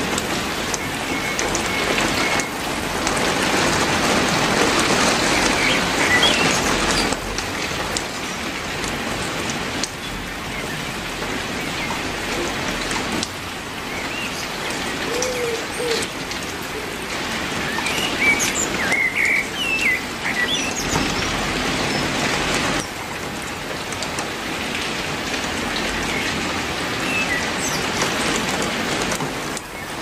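Steady heavy rain falling on tree leaves, its loudness shifting every few seconds. A few short bird chirps come through the rain around the middle.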